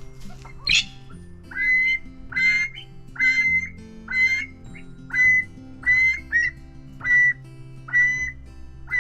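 A pheasant gives a run of about ten short, harsh calls, roughly one a second, after a brief rising whistle. Background music plays underneath.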